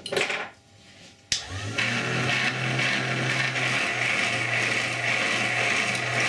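Homemade powered sharpening machine starting with a click about a second in, then running with a low motor hum under a steady abrasive hiss as a blade is honed freehand on its sandpaper-faced wheel.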